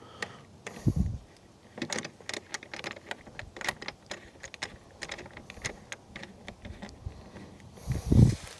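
Light clicks and taps of hard plastic storage units being handled and tried in place on a mounting rail, with a dull thump about a second in and another near the end.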